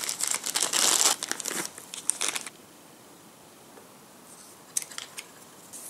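Small plastic bag crinkling as it is handled, for about two and a half seconds. Then quiet, with a few light clicks near the end.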